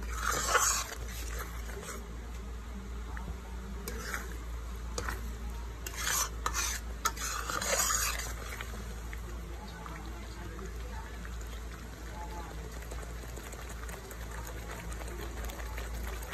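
Metal spatula stirring and scraping a thick tomato and ground-spice masala sizzling in oil in a metal kadhai. There are several scraping strokes in the first half, then a steadier sizzle. The paste is being fried down in the oil.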